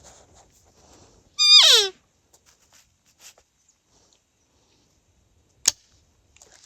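A single cow-elk mew call about a second and a half in, high and then sliding down in pitch, used to stop a bull elk. Near the end, one sharp click: the rifle dry-firing on an empty chamber because no shell was loaded.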